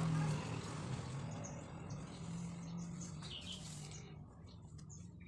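Denim rustling as the jeans are smoothed and lifted by hand, over a low hum; the rustle fades about four seconds in, leaving faint bird chirps.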